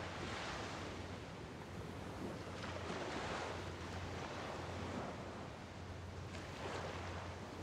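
Small bay waves washing onto the shore, rising and falling about three times, with wind over the microphone and a steady low hum underneath.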